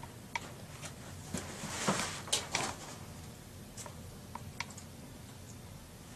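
Scattered light clicks and taps, with a brief rustling scrape and a few sharper clicks about two seconds in: hands handling cabinet parts and hardware.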